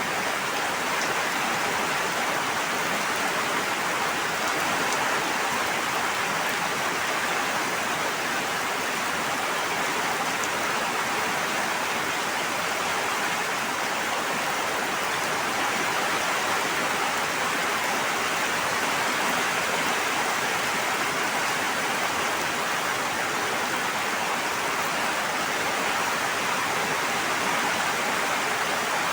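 Steady rush of water, an even hiss that holds at one level throughout, with no separate drops or pauses standing out.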